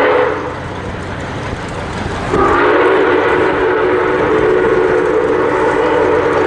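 Nickel Plate Road 765, a 2-8-4 Berkshire steam locomotive, sounding its chime steam whistle: a blast that cuts off just after the start, then a long, steady blast beginning about two and a half seconds in. Underneath is the low rumble of the moving train.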